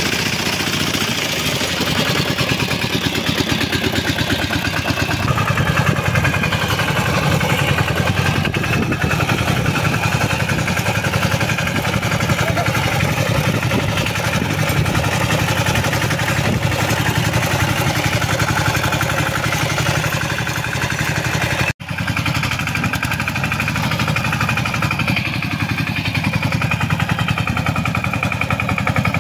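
Two-wheel walking tractor's engine running steadily with a rapid, even putter as it pulls a riding trailer. The sound cuts out for an instant about 22 seconds in.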